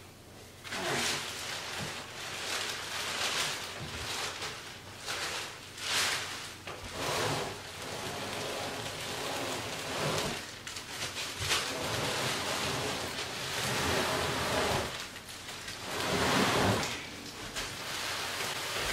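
Plastic wrap around a couch section crinkling and rustling in repeated surges as the wrapped piece is pushed and slid along the floor.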